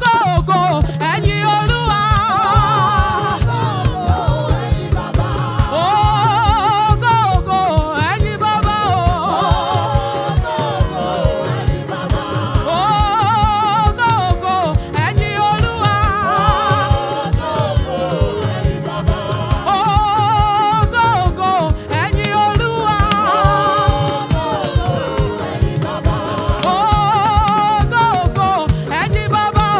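Live gospel praise music: a choir singing in repeated phrases, with vibrato, over a busy drum beat and bass.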